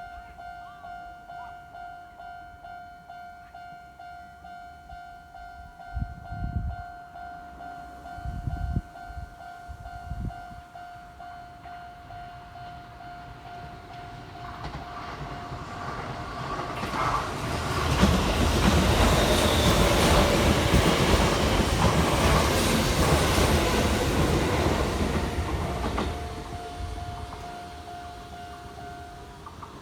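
Japanese level-crossing warning bell ringing with a steady, rapidly pulsing tone while an electric commuter train approaches. The train then runs through the crossing, loud for about eight seconds, drowning out the bell. As the train fades the bell is heard again, then stops shortly before the end.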